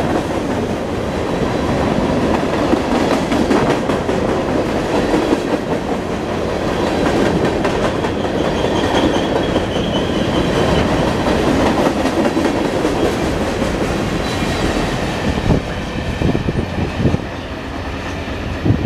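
Freight cars of a long mixed manifest train rolling past: a steady rumble of steel wheels on rail with clickety-clack. A faint high wheel squeal comes in about halfway through.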